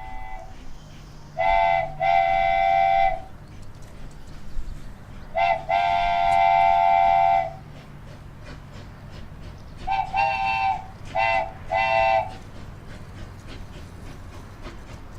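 Train whistle with a chord-like multi-note tone, blowing in separate blasts. A two-part blast comes about a second and a half in, two quick toots and a long blast come in the middle, and a run of short toots follows about ten seconds in.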